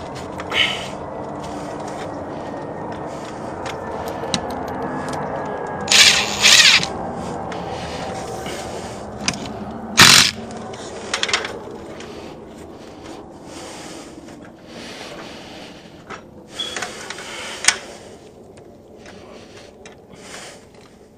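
Cordless driver running in short bursts against a stucco wall, fastening cable clips for a coax line, over steady rubbing and scraping as the cable and wall are handled. The loudest burst comes about ten seconds in.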